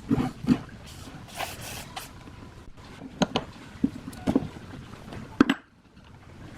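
A series of irregular, sharp knocks and clicks over a steady low hiss, typical of metal parts and tools being handled; the sharpest knock comes about five seconds in.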